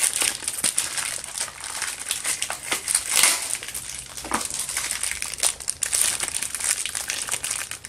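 Plastic packaging of a Beyblade random booster crinkling and crackling in the hands as the pack is opened and its parts are taken out.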